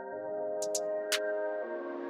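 Background electronic music: sustained synthesizer chords that shift to a new chord about a second and a half in, with a few light, sharp percussion ticks.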